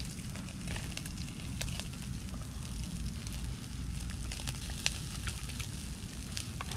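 Meat sizzling on a charcoal grill, with scattered small crackles and pops from the coals and dripping fat, over a steady low rumble.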